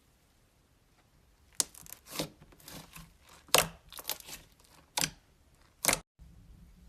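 Slime being handled, squeezed and poked, giving a string of sharp sticky crackles and pops that start about a second and a half in and stop just before a brief dropout near the end.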